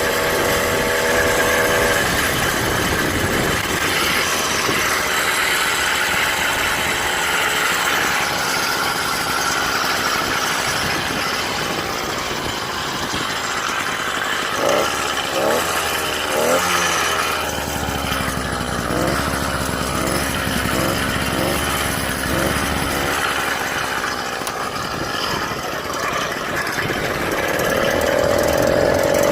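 Small 49cc two-stroke bicycle engine running under way on its stock exhaust, still being broken in, its pitch rising and falling as the rider changes speed.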